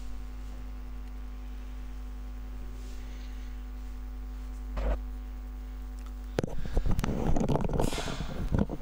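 Steady electrical mains hum with several constant tones. About six and a half seconds in, a louder, irregular crackling noise joins it.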